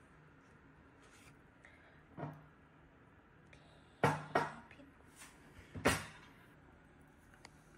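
A few sharp knocks and clatters of bottles being picked up and set down on a tabletop, a glass wine bottle and a plastic soda bottle among them. The loudest come as a quick pair about four seconds in and a single knock near six seconds.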